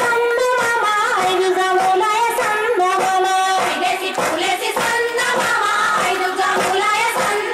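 A Bathukamma folk song sung by high voices over music, with a steady beat throughout.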